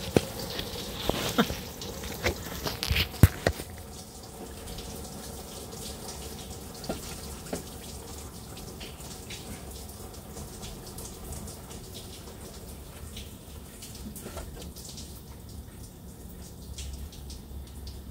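Engine coolant draining out in a steady trickle of liquid. Several sharp clinks come in the first few seconds.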